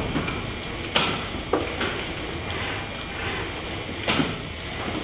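4-metre humanoid robot walking sideways: a steady mechanical running sound from its drive, broken by sharp clunks as it shifts its weight and sets its feet down. One clunk comes about a second in, another half a second later, and two close together about four seconds in.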